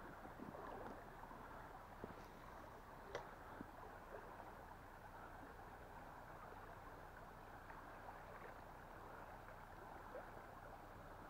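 Faint, steady rush of a flowing river, with a few light clicks, the clearest a little over three seconds in.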